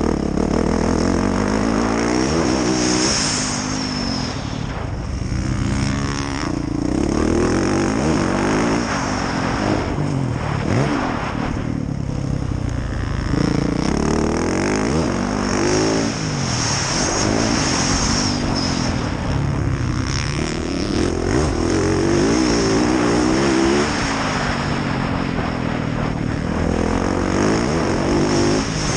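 Yamaha YZ450F's four-stroke single-cylinder engine being ridden hard, its pitch rising and falling again and again as the throttle opens and closes through the gears.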